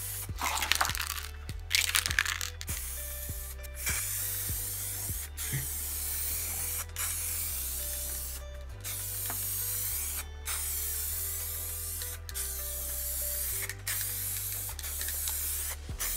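Aerosol spray-paint can hissing in two short bursts near the start, over instrumental background music with a steady, stepping bass line.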